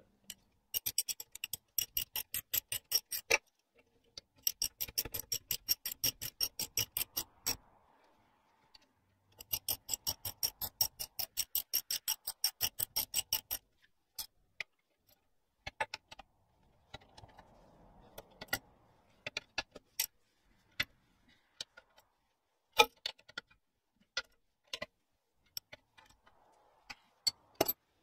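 Socket ratchet clicking rapidly as backplate bolts are tightened: three long runs of even clicks, about six a second, then scattered single clicks.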